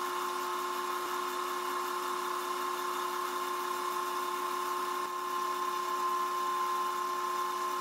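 Wood lathe running steadily at around 1000 RPM, its motor giving a constant whine, while a rag is held against the spinning vase to friction-polish a tung wax finish.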